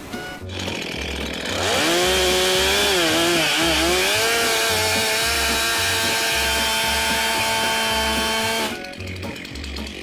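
Gas chainsaw revved up and held near full throttle, crosscutting a freshly milled beam to length. Its pitch wavers for a couple of seconds, then holds steady until it cuts off abruptly near the end. Background music with a steady beat runs underneath.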